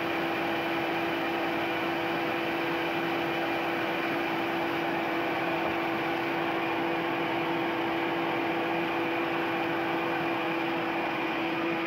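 Ryobi RBDS4601G belt and disc sander running steadily at speed: an even motor hum over the hiss of the moving sanding belt, sanding an oak block left on the belt under a weight.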